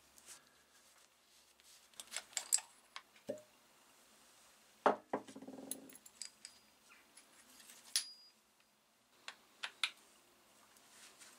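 Scattered metal clicks and knocks of a blowtorch's brass pump parts, steel plunger rod and pliers being handled on a wooden workbench, with one louder knock and a short rattle about five seconds in.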